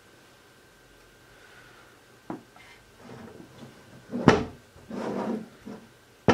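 A cardboard phone box handled on a tabletop: quiet at first, then a few knocks and rubbing, the loudest a thump about four seconds in, and a sharp knock at the end.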